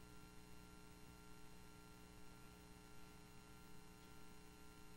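Near silence: a faint, steady electrical hum, typical of a sound system's mains hum.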